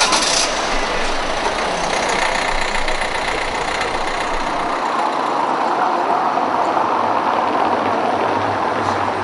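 A car driving along a cobbled street, the rumble of its tyres on the stones growing louder over the second half as it comes past.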